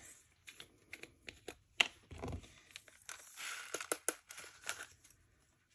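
Handling of a small plastic zip bag and a plastic drill pot: scattered light clicks and ticks and a short stretch of crinkling as loose resin diamond-painting drills are tipped into the bag.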